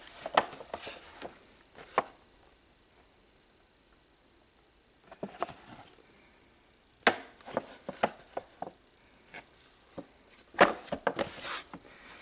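A cardboard toy box with a clear plastic window, holding a die-cast model airliner, being picked up and handled: several bursts of clicks, taps and rustling with short quiet gaps between.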